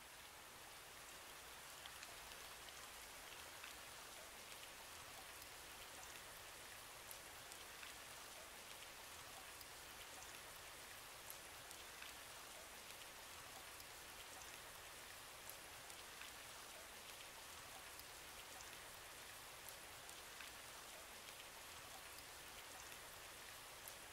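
Faint steady rain: an even hiss with scattered small ticks of drops.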